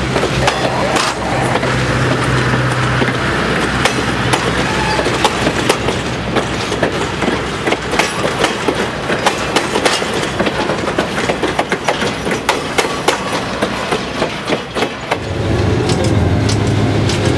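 Passenger cars rolling past at close range, their steel wheels clicking in quick irregular strikes over the rail joints, easing off as the last car goes by. About fifteen seconds in, the sound switches to the cab of an EMD FP7 diesel locomotive, its engine running with a steady low hum.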